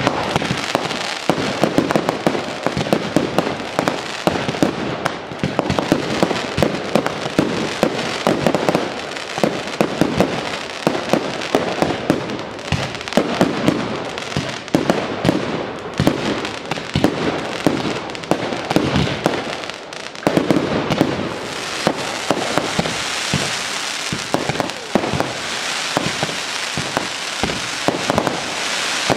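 Fireworks display in a dense barrage: rapid, overlapping bangs and crackling with no let-up. Over the last third the crackle turns brighter and more hissing.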